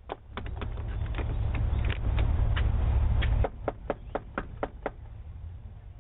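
Repeated knocking on a front door, picked up by a doorbell camera's microphone: irregular raps, then a quicker, even run of about four knocks a second that stops near the five-second mark. A low rumble lies under the knocks and drops away about three and a half seconds in.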